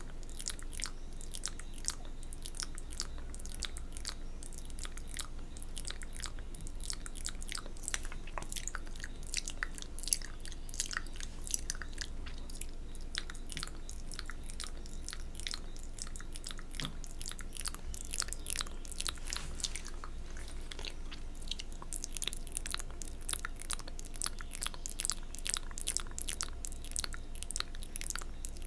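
Wet mouth sounds close to a microphone: continuous licking and saliva smacking for spit painting, a dense run of quick moist clicks.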